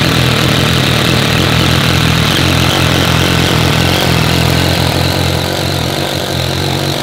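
Power drill running steadily with a spade bit boring a hole down through a countertop.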